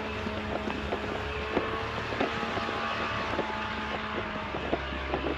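An engine running steadily, just got going after being refuelled from a low-fuel warning, with scattered light clicks over the hum.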